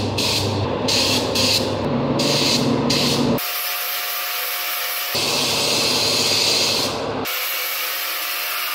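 Compressed-air spray gun hissing as it is triggered on the wheel: several short bursts in the first three seconds, then a steadier hiss.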